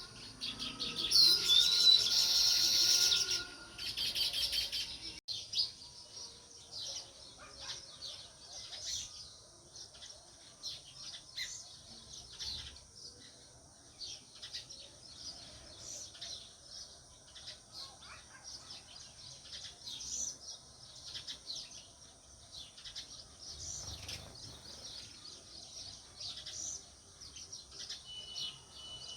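House sparrows chirping: many short, high chirps keep coming throughout. A much louder burst of sound fills the first few seconds, with a shorter one after it.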